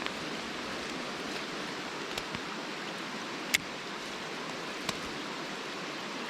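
Steady hiss of rain and flowing river water, broken by three short sharp clicks, evenly spaced a little over a second apart.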